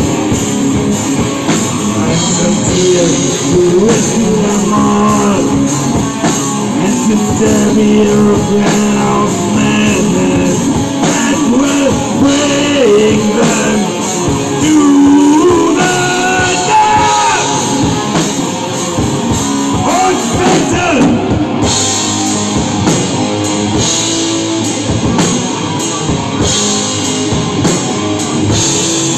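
Rock band playing live and loud: electric guitar over a Pearl drum kit, with the guitar bending notes across a steady drum beat.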